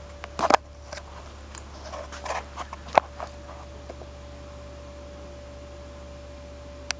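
Scattered short rustles and sharp clicks, busiest in the first three seconds with the sharpest click about three seconds in and one more just before the end, over a steady low electrical hum with a faint steady tone.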